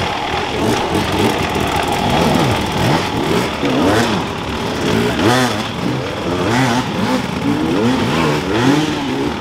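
Dirt bike engines revving up and down over and over, the pitch rising and falling about once a second, as enduro riders work the throttle through a section.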